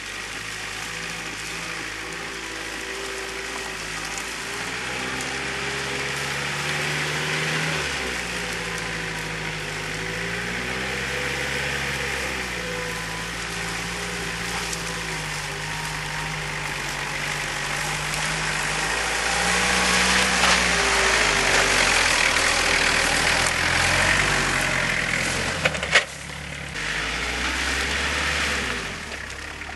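Jeep Wrangler YJ engine driving off-road through mud and grass, its pitch rising and falling again and again as the throttle is worked. It gets louder about two-thirds of the way through, with a rushing noise over the engine, and there is a single sharp knock shortly before the end.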